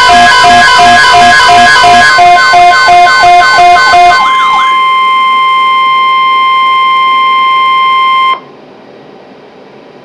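Weather radios sounding their alert for a Severe Thunderstorm Watch: a steady, loud warning alarm tone, overlaid at first by other radios' rapidly pulsing beeps and a repeating falling sweep. The beeps and sweeps stop about four seconds in, and the steady tone carries on alone until it cuts off suddenly about eight seconds in, leaving faint radio hiss.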